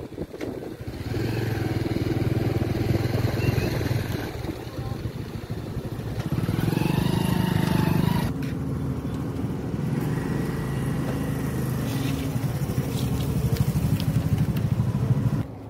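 Motorcycle engine running while riding, with a steady beat. It revs up and eases back around six to eight seconds in, then drops away suddenly near the end.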